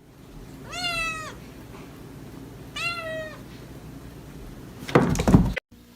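A cat meowing twice, each meow about half a second long and dropping in pitch at the end. Near the end comes a loud, brief noise, the loudest thing here.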